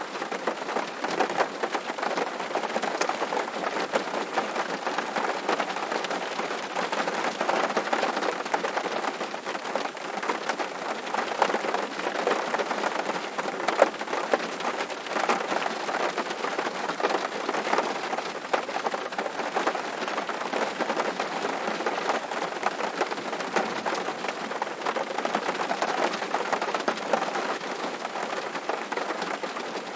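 Steady rain drumming on a tin roof, a dense unbroken patter of countless drops.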